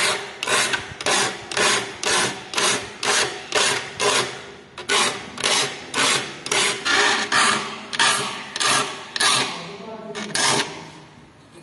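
A small steel saw file rasping across the teeth of a hand saw clamped in a vise, in short, even strokes of roughly two a second, one stroke per tooth as the file moves along the blade. The strokes stop near the end.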